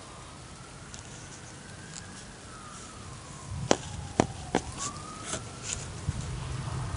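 A distant siren wailing, its pitch slowly rising and falling, over the steady hiss of rain, with a few sharp drip taps about halfway through and a low rumble in the second half.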